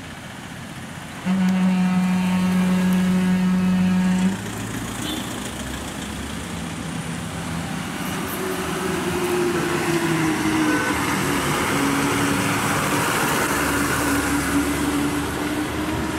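A vehicle horn sounds steadily for about three seconds a little after the start, and sounds again more faintly a few seconds later. Then a Tamil Nadu government bus's diesel engine grows louder as the bus comes round a hairpin bend, its drone dipping and then rising in pitch.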